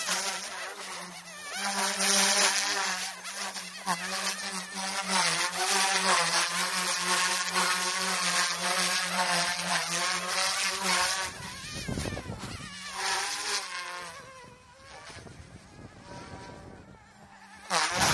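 Small electric GOOSKY S2 RC helicopter in flight, its motor and rotor making a steady insect-like buzzing whine whose pitch wavers as it manoeuvres. The buzz fades about eleven seconds in, with wind gusting on the microphone around twelve seconds and again near the end.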